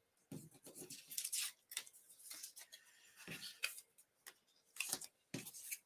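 Paper and card stock being handled: a string of short, light rustles and scrapes as die-cut paper pieces are picked up and laid on a card.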